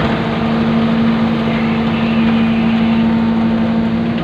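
Excavator's diesel engine and hydraulics running steadily, with a steady hum, heard from inside the cab as the boom and bucket swing.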